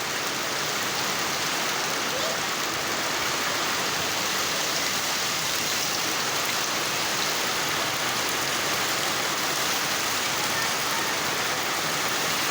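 Steady heavy rain falling and pattering on surfaces, an even unbroken hiss.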